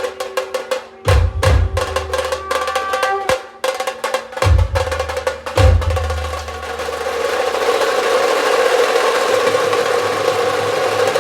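Dhol and tasha drums playing: quick sharp strokes with a few deep booming beats, then from about six and a half seconds a dense, unbroken drum roll.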